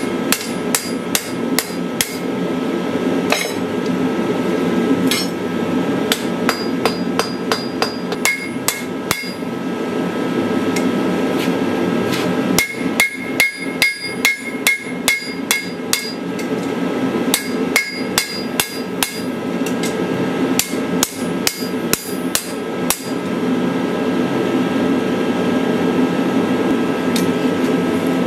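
Hammer striking hot steel on an anvil while forging a knife: runs of quick blows, about three a second, broken by short pauses, each blow leaving a high ringing. A steady low rushing noise runs underneath.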